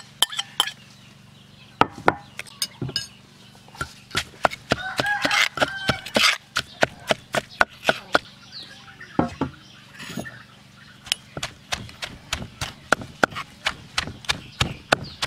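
Wooden pestle pounding in a stone mortar, knocking against grilled chicken pieces, chili and shredded green mango. The strikes start about two seconds in, irregular at first, then steady at roughly three a second.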